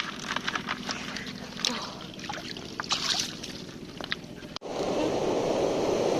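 Scattered sharp clicks and taps over a light hiss. Then, after a sudden cut about four and a half seconds in, a steady rush of water.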